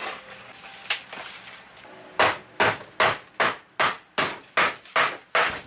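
Claw hammer blows knocking apart wooden kitchen cabinetry during demolition: one knock, then a steady run of about nine strikes at roughly two and a half a second.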